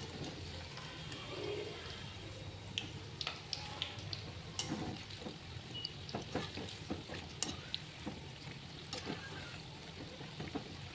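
Lentil vadas sizzling as they deep-fry in hot oil in an iron kadhai, a steady hiss with scattered light clicks and scrapes as a wire skimmer turns them over.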